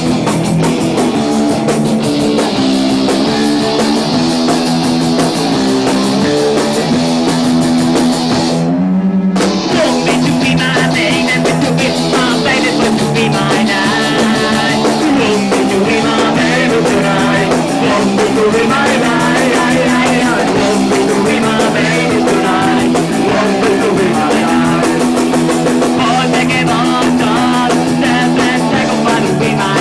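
Punk rock band playing live, with loud distorted electric guitars and a drum kit. The music starts abruptly, and there is a brief break about nine seconds in.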